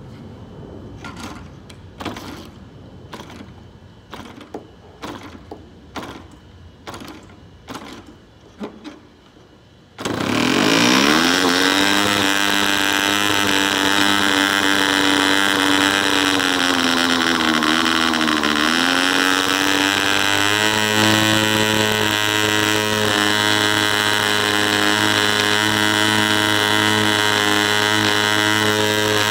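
DC Spitfire model aircraft diesel engine being started by hand-flicking its propeller: about a dozen sharp flicks, then it catches about ten seconds in and runs with a loud, steady buzz. Its speed sags and then picks up again partway through as the engine is adjusted by hand, then holds steady. It is a new engine that, in the owner's view, still needs more running in.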